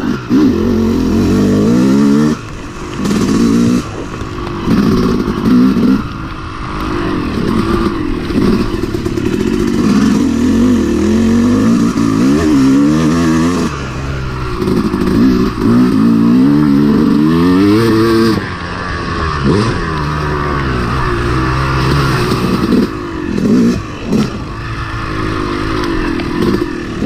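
Yamaha YZ250X two-stroke single-cylinder dirt bike engine revving up and down as the rider works the throttle on a muddy trail. The throttle is closed briefly several times along the way, dropping the engine note before it picks up again.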